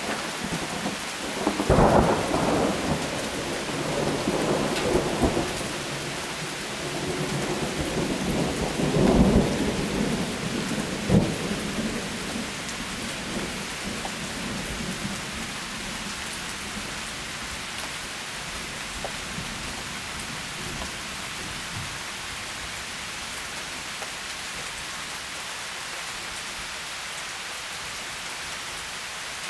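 Steady rain falling. Several loud low rumbles and a sharp crack come in the first dozen seconds, then the rain settles into an even hiss.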